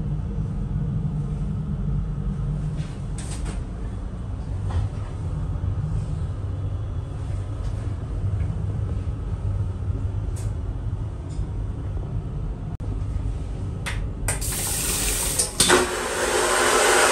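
Low steady rumble of the electric train running, with a few light clicks; about fourteen seconds in the train toilet flushes with a loud rushing hiss lasting about three seconds.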